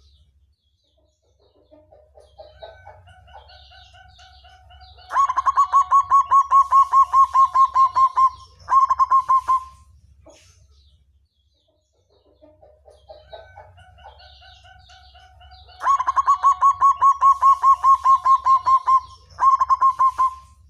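Black zebra dove (perkutut hitam) singing two full songs. Each song opens with soft, scattered coos, breaks into a fast, loud, even string of short coos, and ends on one longer held note.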